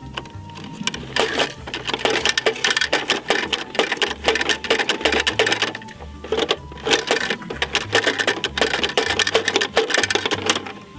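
Rapid plastic clicking from the rear bin-lifter mechanism of a Bruder 4143 toy recycling truck as its knob is worked to raise and tip the bin. It comes in two runs of fast clicks, with a brief pause about six seconds in.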